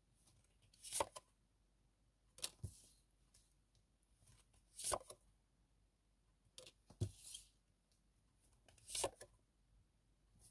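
Tarot cards being handled and laid down: a short papery snap or slap about every two seconds, five in all.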